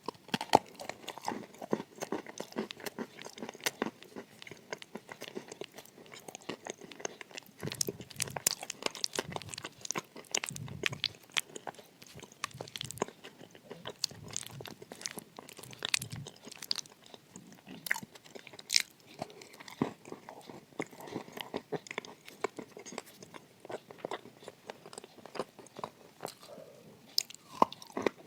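Close-miked biting, crunching and chewing of dry edible clay, with many sharp crunches and clicks and slower, fuller chewing stretches between.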